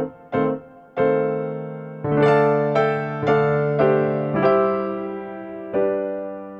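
Background music: a slow melody on a piano-like keyboard, single notes struck one after another and each left to fade.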